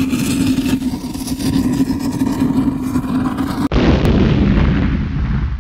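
Sound effects of an animated countdown intro: a loud, steady drone, then about two-thirds of the way through a sudden switch to a deep, booming rumble that cuts off abruptly.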